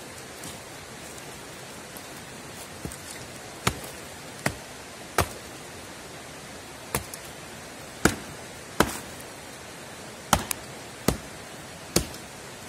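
Benman survival axe with a 600 g carbon-steel head chopping into a log: about ten sharp strikes at uneven intervals, roughly a second apart, starting about three seconds in, over a steady hiss.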